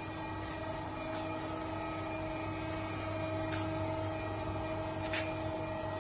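Steady hum of machinery in a CNC lathe workshop, several tones held together, with a few short knocks scattered through it.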